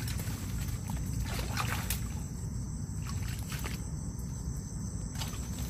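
Night insects chirring steadily and high, under a low rumbling handling noise with a few faint rustles as the camera moves against clothing.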